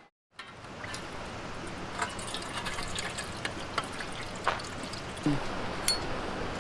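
Water trickling and splashing over rocks in a mountain stream, a steady rushing with many small sharp drips and splashes.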